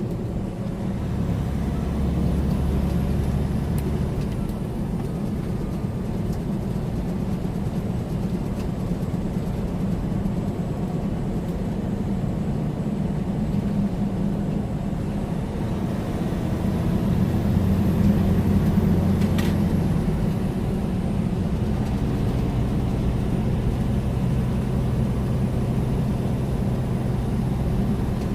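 Steady drone of a loaded semi-truck's diesel engine and tyre and road noise, heard from inside the cab while cruising at highway speed.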